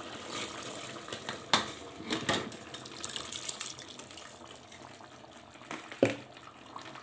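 Soaked rice and its soaking water being poured into an aluminium pressure cooker of chicken masala, a steady splashing pour, with a few sharp metallic knocks against the pot about 1.5 s, 2 s and 6 s in.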